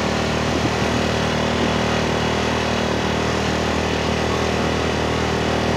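Motorcycle engine running at a steady, even note while riding slowly along a snow-covered road, heard from on the bike.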